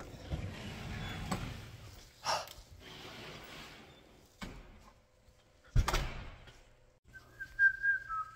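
Rustling and two sharp knocks, like a door or object banging, then about seven seconds in someone starts whistling a tune, the pitch stepping up and down, over a low steady hum.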